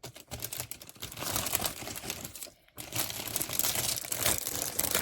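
Crinkly packaging being handled, crackling and rustling in two stretches with a short break about halfway through.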